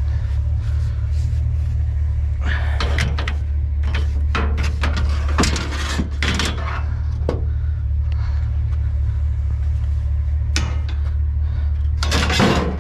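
Scrap junk being handled and loaded, clattering and knocking: a run of sharp knocks and clanks through the middle and a louder clatter near the end, over a steady low rumble.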